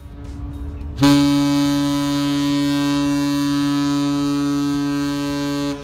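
A ship's horn sounds one long, steady blast, starting about a second in and cutting off just before the end, over a low rumble.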